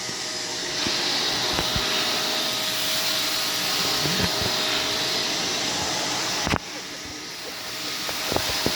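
Vacuum cleaner running, a steady hiss with a faint hum. A sharp knock comes about six and a half seconds in, after which it is quieter, then slowly grows louder again.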